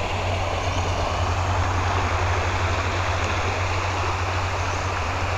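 Steady rushing of a shallow river running over a rocky riffle, with a constant low rumble beneath it.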